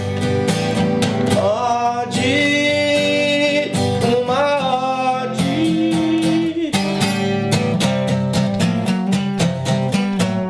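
A song with acoustic guitar strumming and a voice singing over it.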